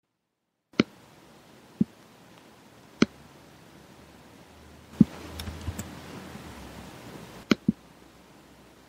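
Sharp clicks or knocks over a low hiss: one each about a second in, near two seconds and at three seconds, a louder one at five seconds that starts a stretch of rustling, and a quick pair near the end as the rustling stops.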